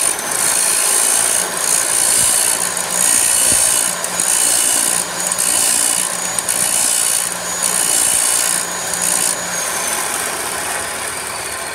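Abrasive chop saw with the cut end of a steel all-thread rod held against its spinning wheel at about 45 degrees and turned, grinding the burr off the threads; the grinding swells and fades about once a second as the rod is rotated. Near the end the grinding stops and a high whine slides downward as the wheel slows.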